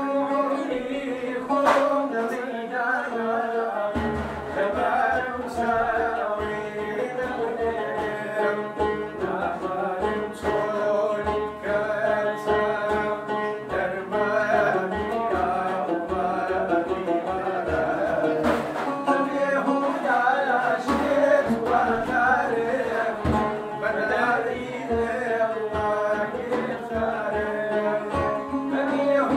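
A man sings a folk-style song, accompanying himself on a long-necked plucked lute with a round body; the singing and plucked melody go on without a break.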